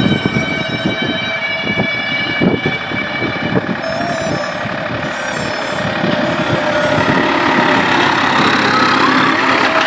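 Farm tractor's diesel engine running under load while ploughing with a tyne cultivator, with a rattling clatter. It grows louder from about halfway through as the tractor comes close.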